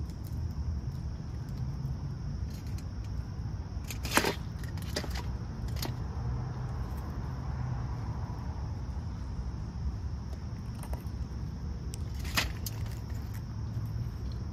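Outdoor ambience with a steady low rumble and a steady high buzz of insects. Over it come a few sharp clicks of peanuts in the shell rattling on a metal tray as a squirrel takes them, loudest about four seconds in and again later.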